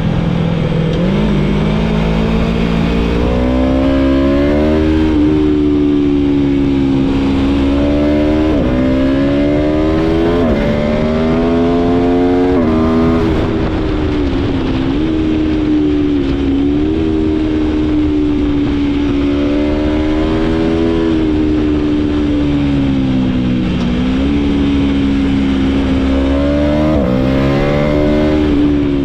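Aprilia Tuono V4 motorcycle's V4 engine accelerating hard from on board. The revs climb and fall sharply at each of four quick upshifts in the first half, then hold fairly steady with a few small dips, over a low steady rush.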